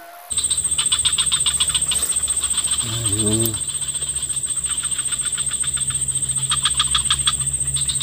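Swamp insect chorus: a steady high-pitched whine with a fast, even pulsing call over it and a low steady hum beneath. A brief low call sounds about three seconds in.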